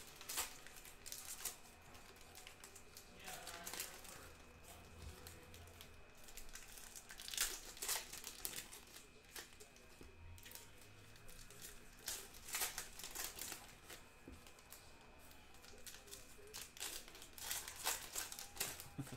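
Foil wrappers of sports trading card packs crinkling and tearing as packs are ripped open, in separate short bursts several times over.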